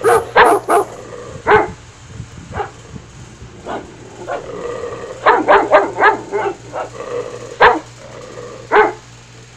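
Dog barking and yipping in short sharp calls, mostly one at a time, with a quick run of four or five yips about five seconds in.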